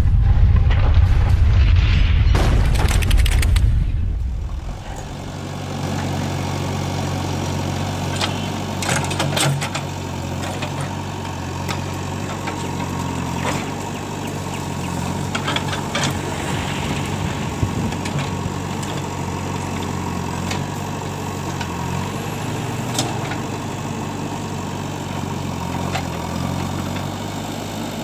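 A loud low rumble for the first four seconds. Then the diesel engine of a JCB 3DX backhoe loader runs steadily while the backhoe arm works through brush, with a few sharp clicks and knocks.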